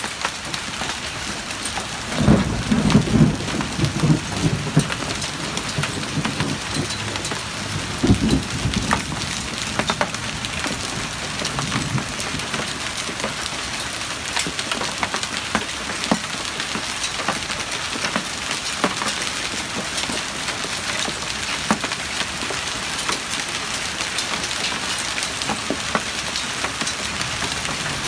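Small hailstones and heavy rain pelting a paved driveway: a dense, steady hiss dotted with many sharp little ticks of hail impacts. Louder low rumbles come in about two seconds in and again about eight seconds in.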